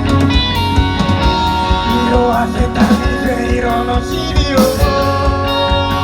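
Rock band playing an instrumental passage: drums keeping a steady beat under bass and guitar, with lead lines that bend in pitch a couple of times.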